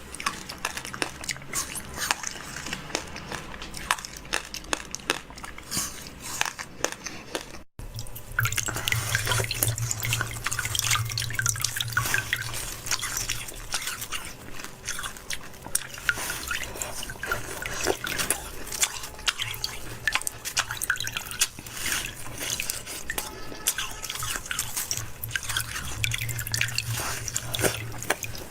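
Wet eating sounds: a dense run of small smacks, clicks and slurps of food and liquid in the mouth. There is an abrupt cut a little under eight seconds in, after which the sounds come back louder.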